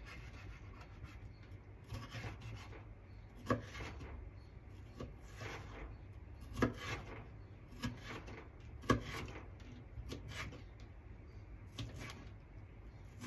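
Kitchen knife dicing seeded tomato on a plastic cutting mat: irregular knocks of the blade on the board, one every second or two, with soft rubbing and scraping between them.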